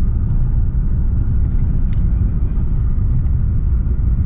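Steady low rumble of a car's engine and tyres heard from inside the cabin while driving, with a faint click about two seconds in.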